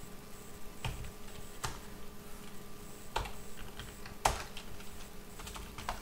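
Typing on a computer keyboard: a handful of separate, irregularly spaced keystrokes with short pauses between them, one louder keystroke a little past four seconds in.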